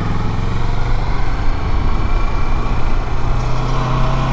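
Motorcycle engine running at a steady speed while riding, its pitch holding level, over a continuous rushing wind noise.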